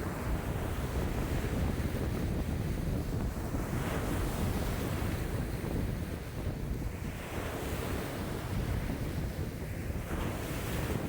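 Lake waves breaking and washing ashore in a strong wind, with a deep rumble of wind on the microphone. The waves swell and break in surges a few seconds apart.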